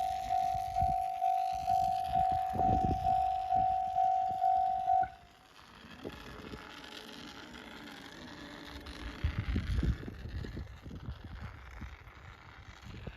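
Japanese railway level-crossing alarm ringing a steady repeating ding, a little under two strikes a second, then stopping about five seconds in once the train has passed. A low rumble follows, loudest near ten seconds in.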